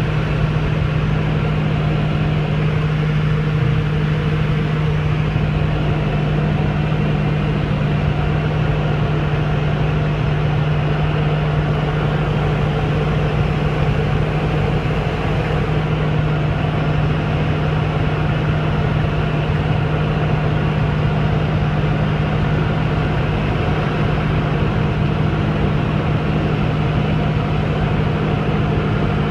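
Diamond DA20 light aircraft's piston engine and propeller droning steadily at one constant pitch.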